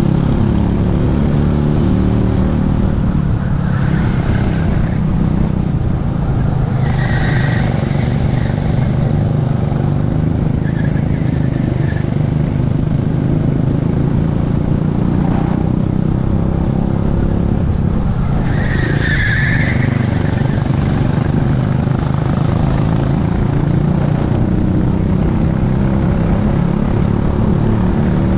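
Techspeed P1000 racing kart's engine running hard at racing speed, heard from a helmet-mounted camera, with other karts running close by. Short tyre squeals come in the corners, about 4 and 7 seconds in, with the loudest about 19 seconds in.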